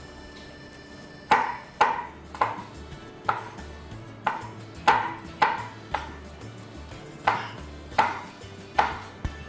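Knife slicing a tomato on a cutting board: about a dozen uneven knocks of the blade meeting the board, starting about a second in, each with a short ring.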